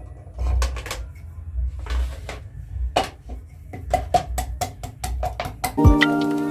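Kitchen knife chopping vegetables on a cutting board: scattered knocks, then a quick steady run of about five chops a second. Near the end, bell-like music chords come in.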